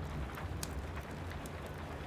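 Steady rain over a low rumble, with a wood fire crackling: a few sharp pops, the clearest a little over half a second in.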